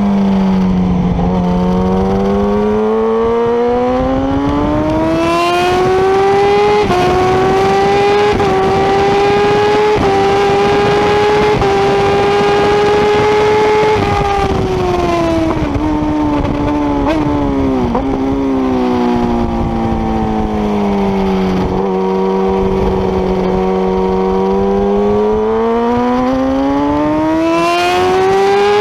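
Motorcycle engine heard onboard at track speed: the revs climb through the gears with short dips at each upshift, fall in steps as it downshifts under braking, hold low through a slow stretch, then climb again near the end. Steady wind and road rush under the engine.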